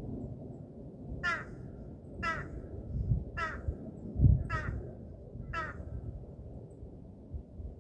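A bird calling five times, about a second apart, each call short. Under it runs a low rumble, with a low thump about four seconds in.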